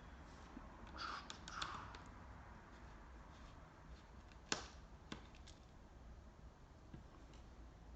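Faint scraping and clicking of a small screwdriver backing out the tiny screws that hold a laptop's LCD panel in its lid, with one sharper click about four and a half seconds in and a few lighter ticks after.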